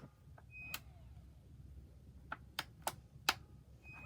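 Sharp clicks from handling and pressing the controls of a Henry cordless vacuum cleaner, with a short high beep about half a second in and another near the end.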